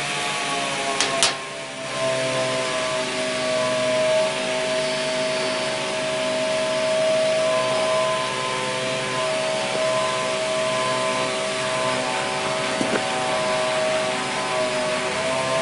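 Machinery running with a steady hum and a whine over a hiss. Two sharp clicks come about a second in, followed by a brief dip in the sound.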